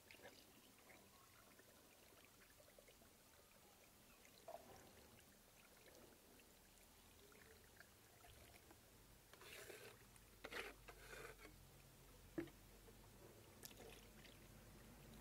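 Faint pouring of thick chalk slurry from a plastic bucket into a chalk machine's mould cavities, with a few brief soft noises past the middle and one small click.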